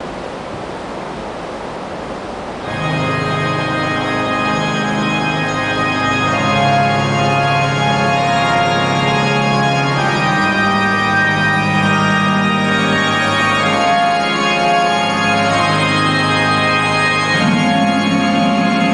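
Music of slow, held organ chords coming in about three seconds in, after a steady hiss of background noise.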